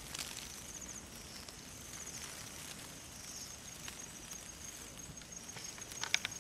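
Night insects calling: a high-pitched trill repeated in short bursts that settles into a steady pulsed chirp. A few faint sharp clicks come just before the end.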